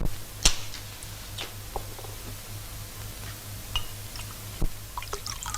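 Steady low hum and hiss of an old optical film soundtrack, with a sharp click about half a second in and another near the end, plus a few faint small ticks.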